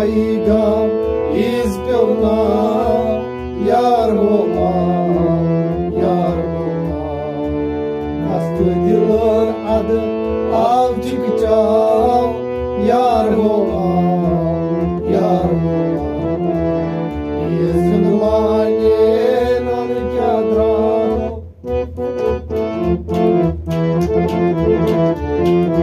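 A man sings a Kashmiri song to a harmonium's sustained chords, with a clay pot drum played by hand. A little after 21 seconds the voice stops, and the harmonium and drum play on with quicker drum strokes.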